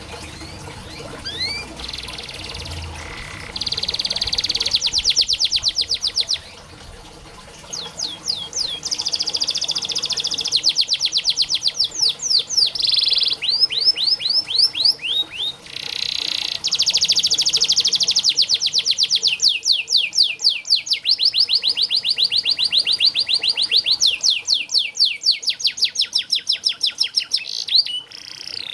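Domestic canary singing a long song made of fast rolling trills. Each run is a rapid string of identical high notes lasting a few seconds, switching to a new trill at a different speed after a brief break. This is a tutor song of the kind played to get silent or young canaries singing.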